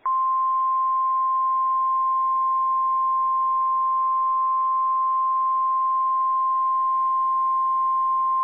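Weatheradio Canada's 1050 Hz weather alert tone: one steady, unbroken pure tone that comes on abruptly and holds at constant pitch and level over faint radio hiss. It is the weather radio tone alarm being tested.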